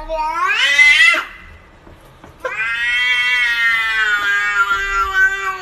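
Domestic cat yowling in two long, drawn-out calls. The first rises in pitch and breaks off about a second in; the second starts about two and a half seconds in and holds for about three seconds, sinking slightly in pitch.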